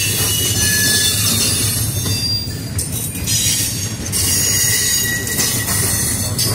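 Double-stack intermodal container cars of a CSX freight train rolling past, a steady rumble of steel wheels on rail with thin, high-pitched wheel squeal coming and going above it.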